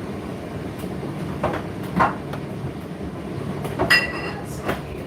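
Dishes and cutlery clinking while food is served, a few sharp knocks with one ringing clink about four seconds in, over a steady low hum.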